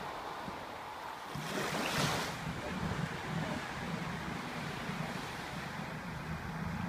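CrossCountry Voyager diesel multiple unit passing; its underfloor diesel engines make a steady low drone that sets in about a second and a half in. Wind and surf hiss underneath, with a short louder gust of hiss around two seconds in.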